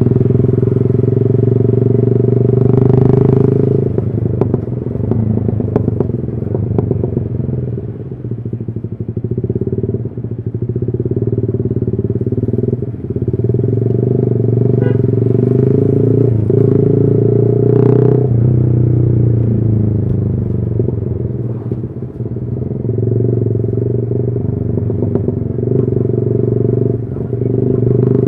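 Yamaha R15 V3's 155 cc single-cylinder engine running through a custom exhaust while riding, its note rising and falling with the throttle and dipping briefly several times.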